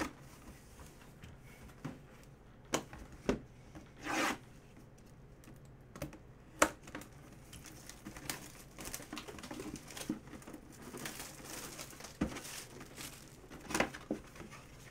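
Clear plastic shrink wrap being torn and peeled off a cardboard box, crinkling, with scattered sharp crackles and taps. The sharpest crackle comes about six and a half seconds in.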